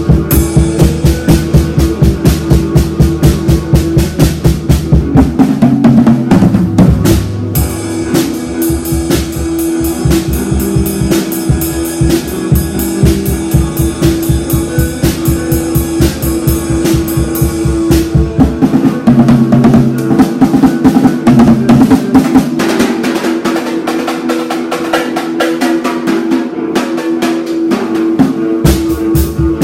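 Music driven by a drum kit playing a fast, steady beat over a held pitched note; the low bass drops away for several seconds near the end.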